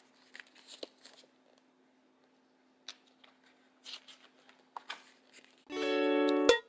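Faint rustling and crinkling of a paper wall calendar as its pages are flipped over. Near the end, louder background music with held, plucked-sounding notes comes in briefly.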